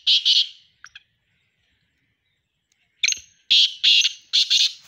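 Black francolin giving its harsh, grating call. One phrase ends just after the start. After about two seconds of quiet, a new phrase begins with a short high note and runs into several loud rasping notes.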